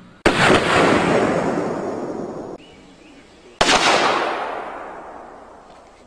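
Two sudden loud bangs about three seconds apart, each ringing out and slowly fading; the first is cut off abruptly.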